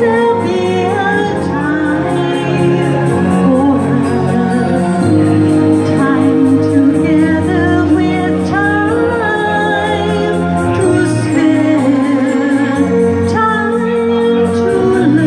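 A woman singing karaoke into a handheld microphone over a recorded backing track, her voice and the music amplified through loudspeakers.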